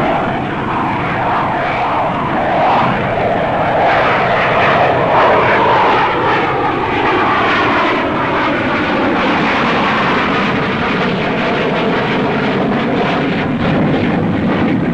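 Fiat G.91 jet trainer's Bristol Siddeley Orpheus turbojet running at takeoff power as the aircraft rolls and lifts off: a loud, steady jet roar with a whine that slides slowly down in pitch.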